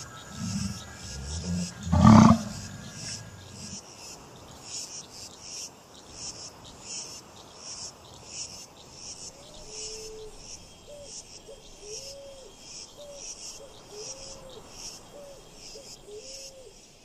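A short loud roar about two seconds in, then crickets chirping in a steady pulse about twice a second.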